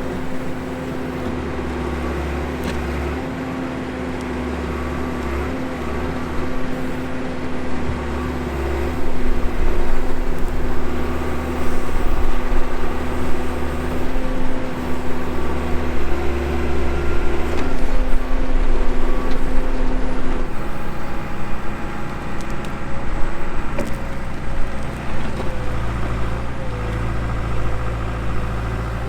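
Backhoe's diesel engine running steadily, then working harder and louder from about nine seconds in as it digs at a large buried rock; its pitch shifts about twenty seconds in.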